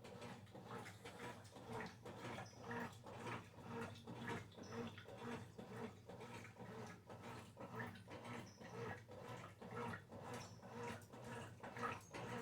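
Brastemp Ative 11 kg washing machine running: a steady motor hum under a fast, irregular run of short swishing strokes, about two to three a second.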